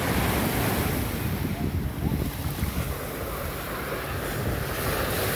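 Small surf waves washing over sand and broken shells at the water's edge, with wind buffeting the microphone.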